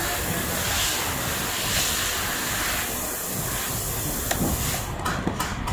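A steady hiss under faint clicks and taps from a screwdriver and small metal parts being fitted to an ATM cassette feeder unit. About five seconds in, a quick run of sharp ticks begins.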